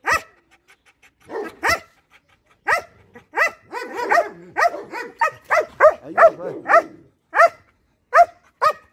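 German Shepherd barking repeatedly in short barks, sparse at first and then in a fast run through the middle of the stretch, with a few more near the end.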